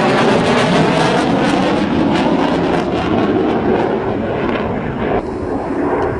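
Fighter jet flying low past, a loud jet-engine rush. About five seconds in the high hiss drops away suddenly, leaving a lower rumble.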